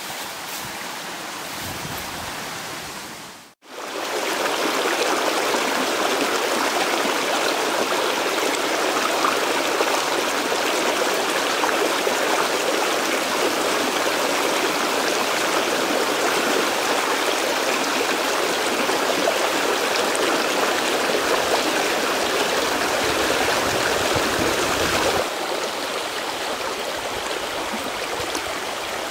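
Shallow rocky stream running, a steady rush of flowing water. It cuts out for a moment about three and a half seconds in, comes back louder, and drops somewhat quieter near the end.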